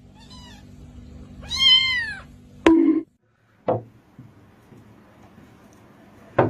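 A cat meowing twice: a faint short meow, then a loud, longer meow about a second and a half in. A sharp click and a dull thump follow.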